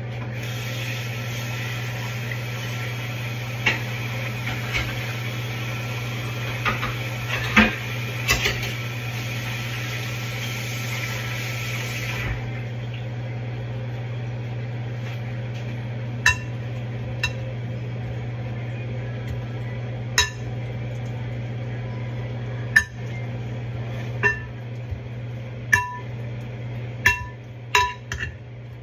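Metal spoon clinking against a glass mixing bowl while stirring seafood boil: about nine sharp, ringing clinks spread over the second half. A steady hiss with a few clatters fills the first part and stops suddenly near the middle, over a constant low hum.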